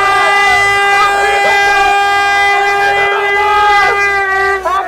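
A horn held in one long, steady blast while a crowd of spectators shouts and cheers a goal. The horn stops shortly before the end, leaving the cheering voices.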